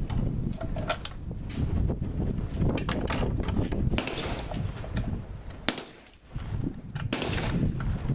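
Wind rumbling on the microphone, with a few light clicks scattered through it and a brief lull about six seconds in.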